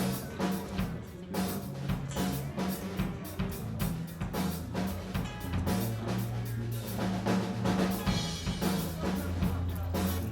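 Live band jam: a drum kit keeps a steady beat of bass drum and snare hits under bass guitar lines, as a trio of guitar, bass and drums plays.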